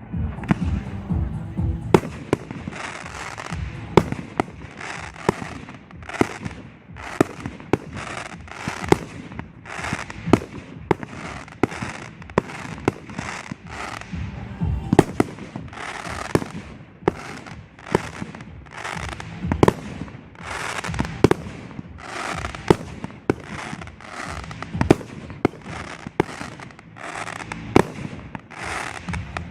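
Fireworks display: aerial shells bursting in rapid succession, many sharp bangs, several a second at times, with crackling between them.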